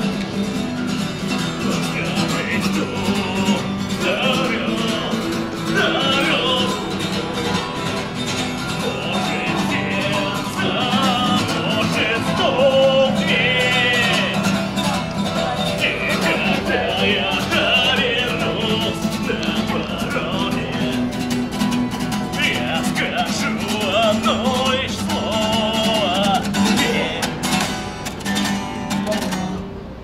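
Street musician singing to an acoustic guitar.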